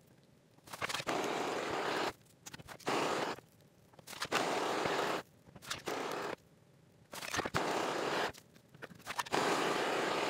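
Aerosol spray-paint can spraying in repeated short bursts, a hiss of about a second or so each that starts and stops abruptly, about six times.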